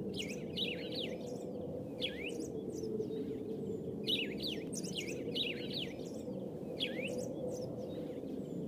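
Birds chirping in short bursts of quick sweeping chirps that come again every couple of seconds, over a steady low background noise.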